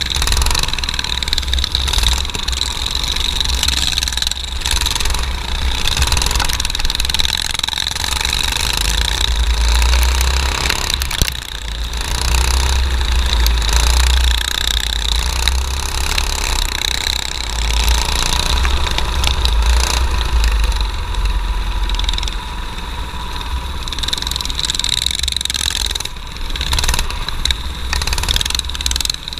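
Junior dirt kart's small engine running hard at racing speed, heard onboard with heavy wind rumble on the microphone. The sound briefly drops twice, about eleven seconds in and again near the end.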